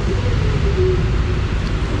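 Steady rush of heavy rain and wind buffeting the microphone, over a low rumble of city street noise.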